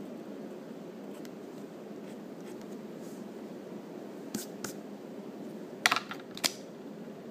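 Graphite pencil scratching faintly on paper, then a few sharp clicks and taps between about four and six and a half seconds in, over a steady low background noise.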